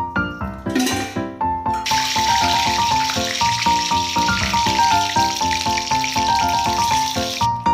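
Bay leaves sizzling in hot oil in a steel wok: a steady hiss that starts about two seconds in and stops shortly before the end, heard over background music with a melody.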